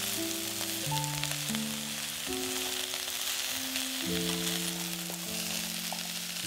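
Broccoli and celery sizzling in a pot over the heat, a steady crackling hiss, stirred and tossed with a plastic spatula. Soft background music of slow, held notes plays along.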